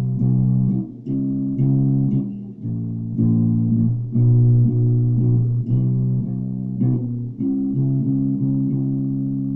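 Ibanez Jumpstart four-string electric bass played as a riff of plucked notes, ending on a held note that rings on over the last couple of seconds. Recorded through a phone microphone, so it sounds thin, with the deepest bass missing.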